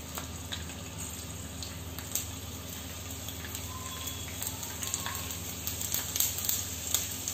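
Whole garlic cloves frying in hot oil in a small pan: a steady sizzle with scattered crackles and pops that get a little busier toward the end. This is the start of a tadka (tempering) for dal, the garlic kept pale rather than browned.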